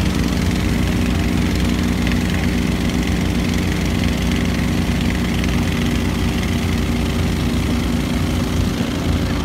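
Small engine of an eight-wheeled amphibious ATV running steadily at an unchanging speed.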